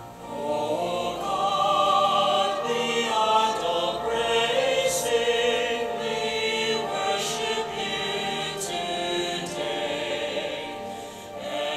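Choir singing sacred music, several voices holding long, sustained notes.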